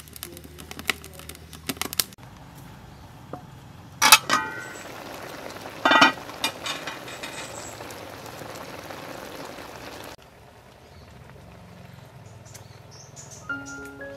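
Wood fire crackling in a clay stove, then two metal clanks with a brief ring from the aluminium cooking pot and its lid, over a steady hiss from the pot of fish and sugarcane simmering and steaming. Music with mallet notes comes in near the end.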